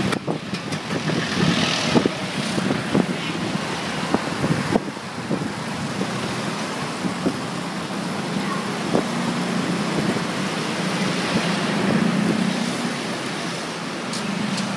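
Road traffic heard while riding on a motorbike: a small engine running steadily, with passing vehicles and occasional short knocks.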